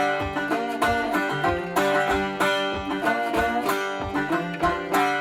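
Background music: an upbeat plucked-string instrumental tune with a steady beat.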